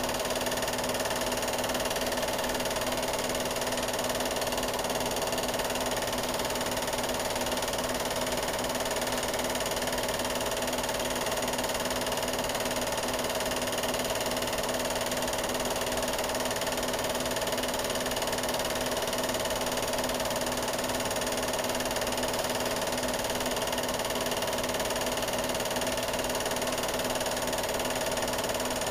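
Steady mechanical whir and hum over a constant hiss, unchanging throughout, with no sound of the race itself.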